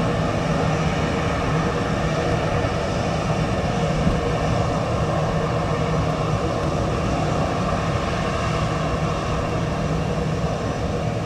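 Airbus A330neo's Rolls-Royce Trent 7000 turbofan engines running, a steady jet rumble with no breaks.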